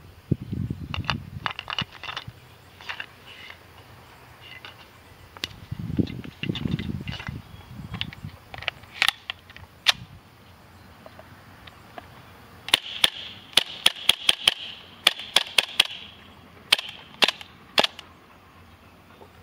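KWA KMP9 gas blowback airsoft SMG firing, with sharp pops as the gas cycles the slide. Single shots are spaced out through the first half, then a fast string of about five shots a second runs for some three seconds about two-thirds of the way in, and a few more single shots follow.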